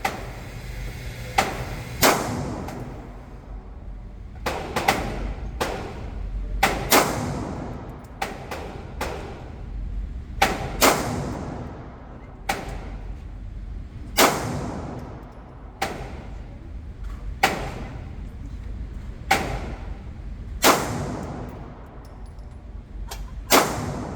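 Gunshots at a shooting range: about twenty sharp reports at irregular spacing, some in quick runs half a second apart, others several seconds apart, each followed by a short echo.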